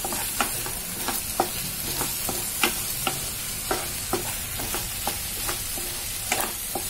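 Chopped onions and tomatoes sizzling in oil in a kadhai, stirred with a wooden spatula that scrapes and knocks against the pan in short irregular strokes over a steady hiss of frying.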